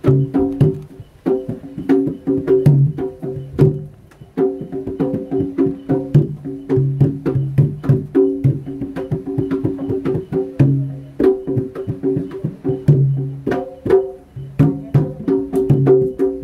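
Jaranan dance accompaniment music: fast, densely struck percussion with rapidly repeated pitched notes, pausing briefly a few times.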